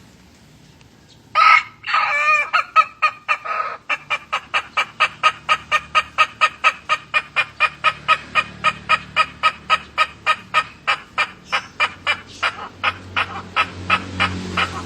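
Ayam ketawa (laughing chicken) rooster crowing: an opening call about a second and a half in, then a long run of rapid, evenly spaced laugh-like syllables, about four a second, carrying on to the end.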